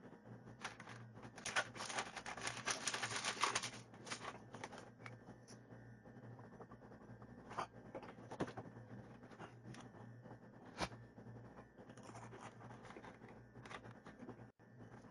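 Plastic packaging and a plastic water bottle being handled: a dense crinkling rustle for a couple of seconds near the start, then a few single sharp clicks, over a faint low steady hum.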